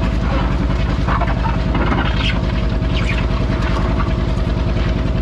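Farmall B tractor's four-cylinder engine running steadily under load with an even, rapid firing beat as it pulls a weight-transfer sled.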